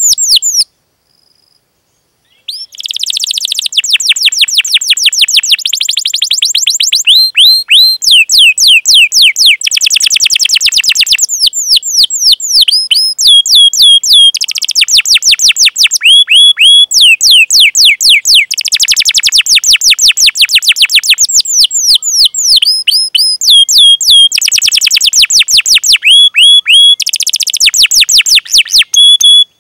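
Domestic canary singing a fast, tight song: long trills of rapidly repeated sweeping notes, with sharp chirps between the rolls. It goes quiet briefly about a second in, then sings almost without a break, with only short pauses between phrases.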